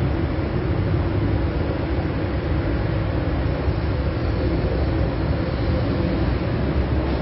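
São Paulo Metro Line 1 train approaching and pulling into an elevated station platform, a steady rumble of wheels and motors.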